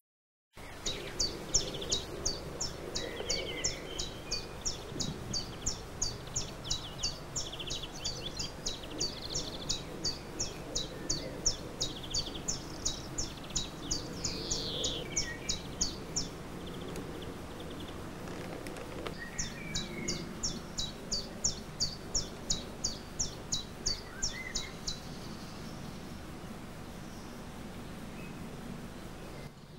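A bird chirping one short high note over and over, about three times a second, over a steady low background din. The chirping breaks off about halfway through and starts again, then stops a few seconds before the end.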